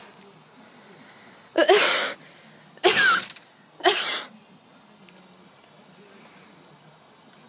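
A person coughing three times, loud and harsh, about a second apart.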